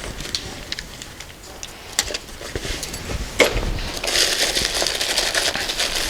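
Tools and spare parts being handled: a few light clicks and a sharper knock about three and a half seconds in, then about two seconds of rustling.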